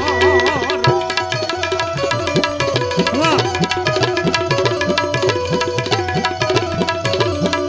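Instrumental interlude of a Gujarati bhajan: tabla playing fast, dense strokes under sustained melody notes. A singer's held, wavering note trails off in the first second.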